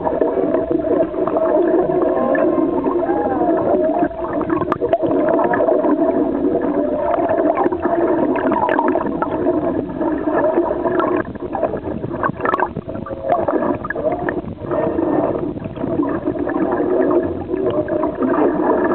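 Humpback whale song heard underwater: many overlapping calls with pitch glides that rise and fall, going on without a break, with a few sharp clicks scattered through.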